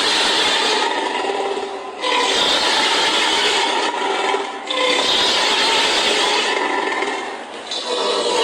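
Dinosaur call sound effect: a loud, hoarse, hiss-like call with little clear pitch, repeated three times in long stretches of about two seconds each with short breaks between.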